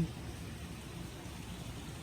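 Garden fountain water splashing, a steady even hiss.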